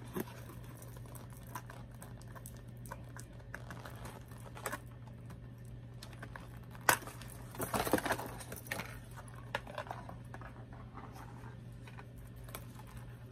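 Plastic packaging crinkling and rustling as it is handled, with scattered light clicks and a louder cluster of rustling about eight seconds in. A steady low hum runs underneath.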